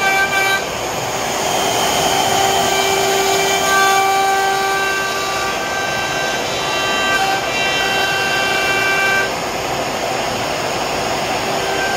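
CNC router carving grooves in a hardwood board: the router spindle and dust collection run with a steady rushing noise, overlaid by steady whining tones that switch on, off and to new pitches every second or two as the machine moves. The level dips briefly about half a second in and again near the end.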